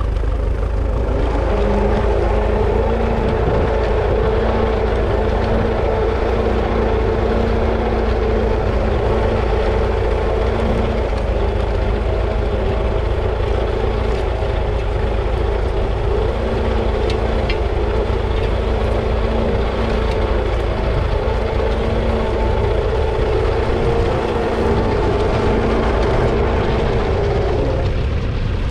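A 1939 Fordson Model N's 4.4-litre four-cylinder petrol/TVO engine runs steadily under load as the tractor pulls a two-furrow trailed plough through the ground.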